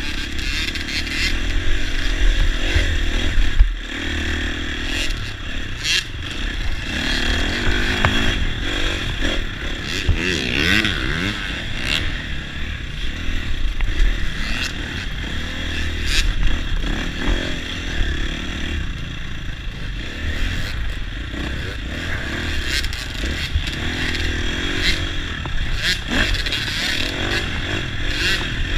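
Dirt bike engine running and revving up and down on a motocross track, with sharp knocks and rattles from the bike over the bumps.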